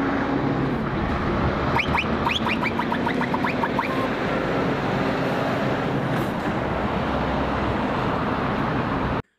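Scania box truck driving past: steady engine drone and road noise. About two seconds in comes a quick run of short rising chirps lasting about two seconds.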